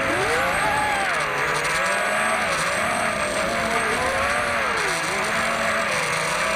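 Brushless motors and three-blade propellers of a 210 mm FPV racing quadcopter (DYS BE2204 2400kv motors) whining, several pitches rising and falling together as the throttle changes.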